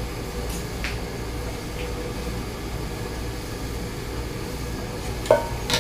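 Steady low hum of kitchen background noise, then near the end a sharp clank of stainless steel kitchenware with a short ringing tone, followed by a second lighter clink.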